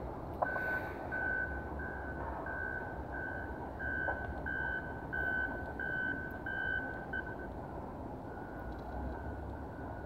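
Distant low rumble of a diesel locomotive working in a rail yard, with a high-pitched beeping about twice a second for some seven seconds that then gives way to a fainter steady tone.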